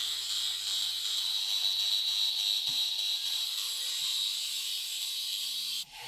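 A power tool running steadily with a high hiss, likely working on shotgun parts, cutting off suddenly near the end.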